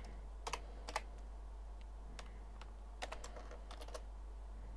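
Computer keyboard being typed on: scattered keystroke clicks with short pauses between them, over a steady low hum.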